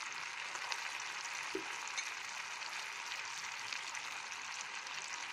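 Sliced onions sizzling steadily in hot oil and a little water in a frying pan, stirred now and then with a wooden spatula.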